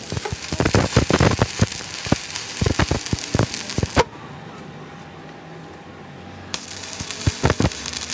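Stick-welding arc crackling and popping as it runs a bead on a cracked truck rear axle housing. The arc breaks off about four seconds in, leaving a faint hum, and strikes again after a couple of seconds.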